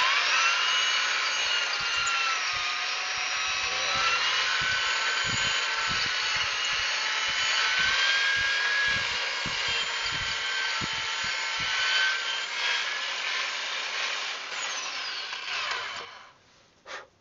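Corded electric drill spinning a drill bit through a rusted brake caliper slide-pin bore to ream out the rust and debris. The motor whine winds up at the start, holds steady with small dips in pitch and a few low knocks in the middle, and stops about 16 seconds in, followed by a brief blip.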